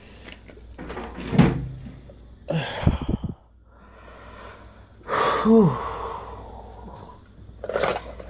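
A man's tired groan and sighs, one falling in pitch about five and a half seconds in, over the rustle of a fabric tote bag being handled, with a low thump about three seconds in.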